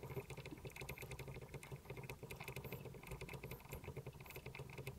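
A small tactile pushbutton on a circuit board is pressed over and over in quick succession, giving a fast run of faint clicks. Each press steps up a seven-segment counter.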